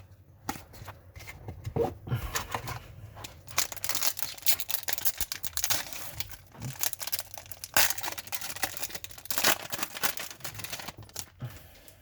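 A trading card pack's wrapper being torn open and crinkled, with irregular crackling, rustling and the shuffling of cards being handled.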